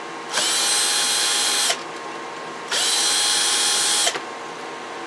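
Cordless power screwdriver run twice, each run about a second and a half long, its motor whine rising quickly to a steady pitch, as it backs out the screws holding a CB radio's cover.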